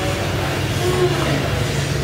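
A steady low rumble of background noise, with a brief faint tone about a second in.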